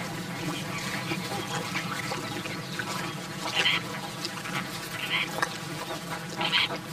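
Greater flamingos calling over a steady low background of the flock, with three short, louder calls in the second half.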